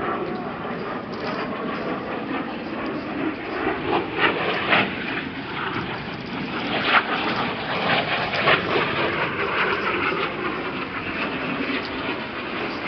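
Canadian Forces Snowbirds CT-114 Tutor jet flying past overhead, a steady rushing jet noise, with a few short knocks in the middle.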